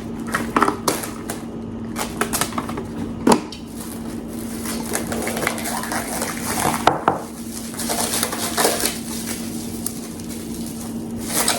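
Plastic wrap rustling and crinkling as it is handled over a bowl, with a few sharp knocks at irregular moments.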